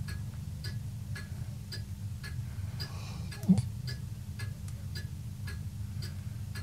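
Steady ticking, about two ticks a second, in the lull between a sleeping Labrador's snores, with one short low snort from the dog about halfway through.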